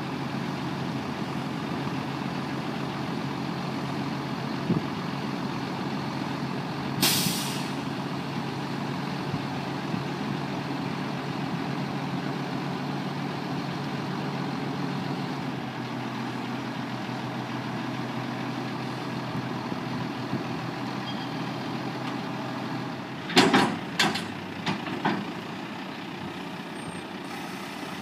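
1991 International 4900T dump truck's diesel engine idling steadily while the dump box is lowered, with a short hiss of released air about a quarter of the way in. Near the end come a few sharp knocks as the box settles down onto the frame.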